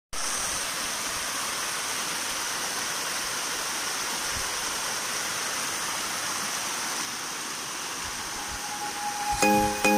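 Small hillside waterfall: water cascading down a rocky stream bed with a steady rushing sound. Music with keyboard-like notes comes in near the end.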